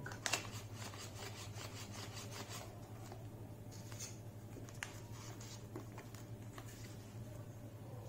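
Folded paper rustling and crinkling as a paper origami flapping bird is handled. A quick run of small papery clicks lasts the first two or three seconds, then a few scattered soft clicks follow.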